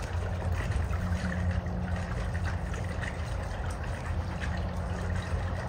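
Swimming-pool water trickling steadily, over a dull low rumble and a steady low hum.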